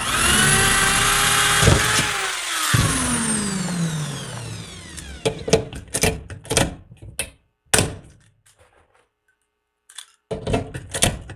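Cordless drill running as it bores a hole in an aluminium tube, then winding down with a falling whine once the trigger is released. After that, a hand pop-rivet tool clicks through several squeezes as it sets an aluminium rivet, with a few more clicks near the end as the next rivet is loaded.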